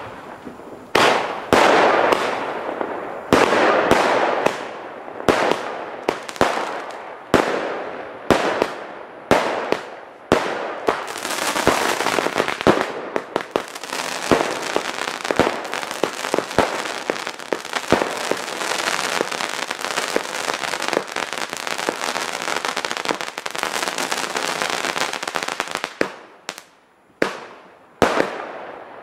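Weco Voodoo Star 500 g consumer fireworks battery firing: a string of sharp shot-and-burst reports about a second apart, then from about eleven seconds in a dense run of rapid pops over a steady hiss for some fifteen seconds, with a few last shots near the end.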